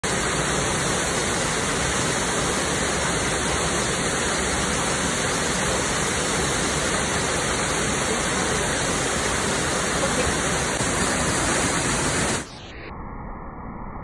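Water of Mae Sa Waterfall rushing in a loud, steady roar of falling water. Near the end it drops suddenly to a quieter, duller rush.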